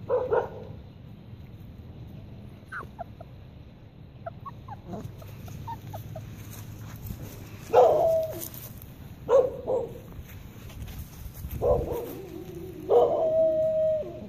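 Young Alaskan malamute puppies giving short yelps and whines several times, ending in one long held whine of about a second.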